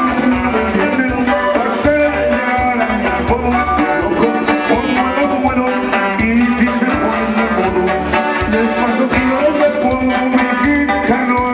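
Live band playing amplified dance music, with guitars over a steady bass beat.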